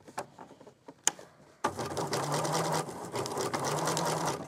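Domestic electric sewing machine running a straight stitch at steady speed, starting about a second and a half in and stopping near the end, after a few light clicks as the fabric is set in place.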